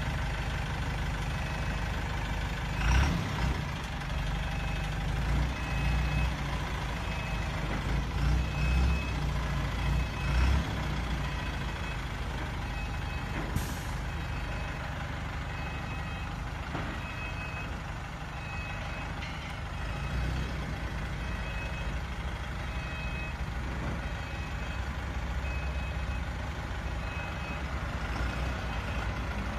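Truck reversing alarm beeping about once a second over the truck's running engine. The engine surges louder in short bursts during the first ten seconds as the truck backs up.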